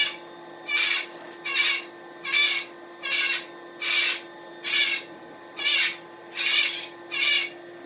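Rhythmic rasping strokes on a cooled, welded joint in 3D-printer filament, about ten of them at roughly one every 0.8 s, as the joint is rubbed down by hand. A faint steady hum runs underneath.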